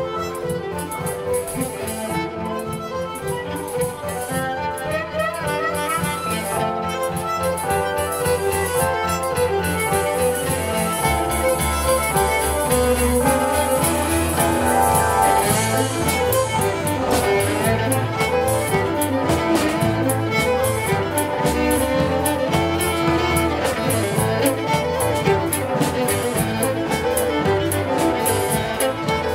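Live contra dance band playing a fiddle-led dance tune, the fiddle carrying the melody over a steady beat; the low end gets fuller about a third of the way in and the music grows gradually louder.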